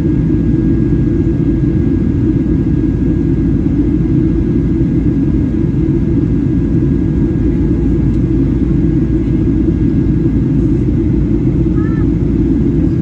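Steady low cabin noise inside a Boeing 737-800 in flight: the jet engines and air rushing past the fuselage, with a faint steady hum above it.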